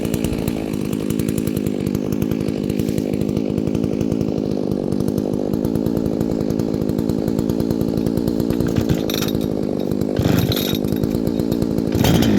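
A brand-new Holzfforma G388 72cc two-stroke chainsaw idling steadily with a rapid, even firing beat while it warms up during running-in. Near the end come a few short rasping sounds, the loudest shortly before the end.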